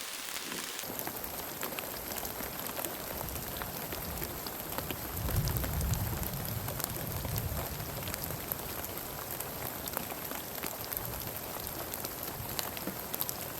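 Heavy rain falling steadily, with many fine ticks of individual drops striking. A low rumble swells in about five seconds in and carries on beneath the rain.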